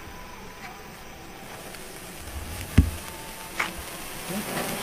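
Three or four hand-held sparklers lit together, burning with a steady hiss that grows stronger through the second half. A single dull thump sounds just before three seconds in.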